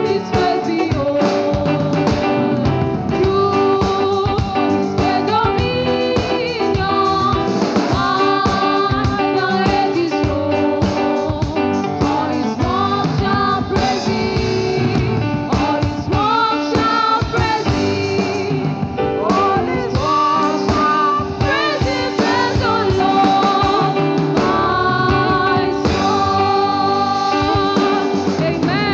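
Live gospel worship music: sung melody over guitar and drum kit, playing steadily.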